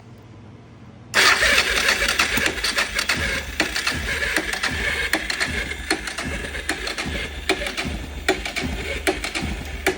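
Suzuki DR650's single-cylinder engine being cranked on full choke, starting about a second in, with irregular firings as it tries to catch but does not run: a no-start, which the owner puts down to a weak, slow spark.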